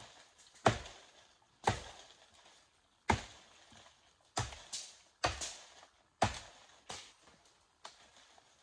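A bolo (machete) chopping into woody brush stems and vines while clearing undergrowth: a string of sharp hacks, roughly one a second, with a few lighter blows between the hard ones.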